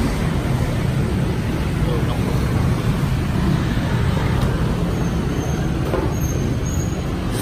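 Street traffic noise: motorbike engines running and passing in a steady rumble.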